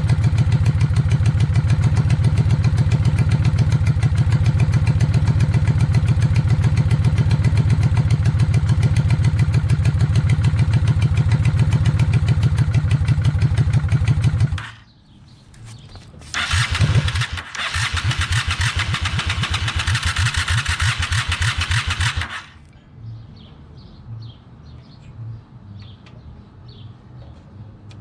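Honda VLX 600 V-twin engine running steadily at idle while its idle screw is being set, then stopping about halfway through. A couple of seconds later it is turned over for about six seconds and stops again, with faint clinks before it starts up again at the very end.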